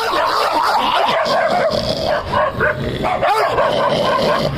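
A dog yipping and barking, with short high whines.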